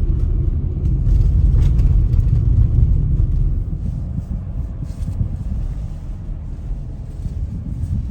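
Low, steady rumble of a 2012 VW Touareg TDI being driven, its engine and tyres heard together. It is louder for the first three and a half seconds, then eases off a little.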